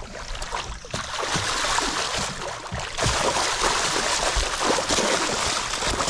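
A hooked musky thrashing at the water surface beside the landing net, with irregular splashing that grows heavier about halfway through.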